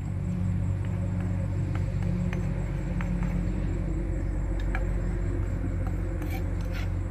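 A steady low hum like a running motor, with a few light, scattered taps of a wooden pestle and spoon in a wooden mortar as a salad is mixed.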